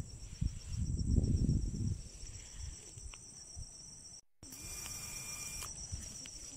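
Insects chirring steadily in grassland, a continuous high-pitched pulsing. Low rumbling and rustling from the phone moving through tall grass is loudest in the first two seconds. The sound cuts out for a split second about four seconds in.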